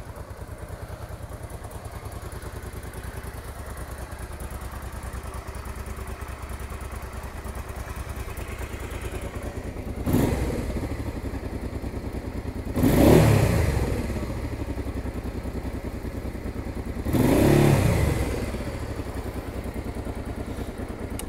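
1998 Honda NT650V Deauville's V-twin engine idling steadily, then revved with three throttle blips in the second half, each rising and falling back to idle, the middle one the loudest.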